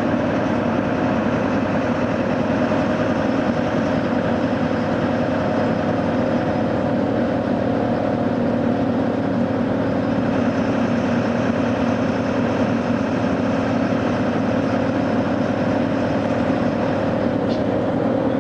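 Inside a MAN NÜ263 low-floor city bus under way: the engine's steady hum at an even pitch over rumbling road and tyre noise.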